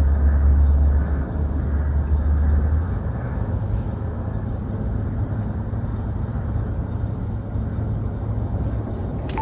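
A steady low rumble with a faint hiss above it. About three seconds in it shifts a little higher and quieter. A single sharp click comes near the end.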